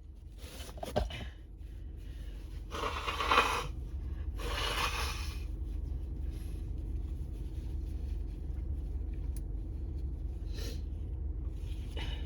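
A person breathing hard between sneezes: a short rustle with a sharp click about a second in, then two heavy, noisy breaths a little over a second apart, over a steady low hum.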